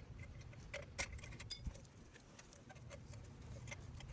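Light metallic clinks and rattles, irregular, of hand tools and brake caliper hardware being handled, with a sharp ringing clink about a second and a half in.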